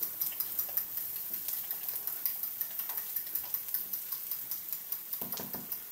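Beaten eggs being whisked with a fork in a porcelain bowl: a quick, even clicking of the tines against the bowl.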